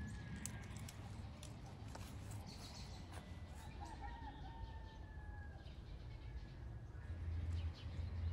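Birds chirping and calling faintly, short high notes and a wavering call about halfway through, over a low steady rumble that grows louder near the end.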